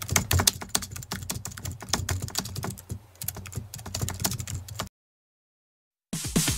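Computer-keyboard typing sound effect, rapid irregular key clicks for about five seconds, stopping abruptly into dead silence. Electronic dance music comes back in near the end.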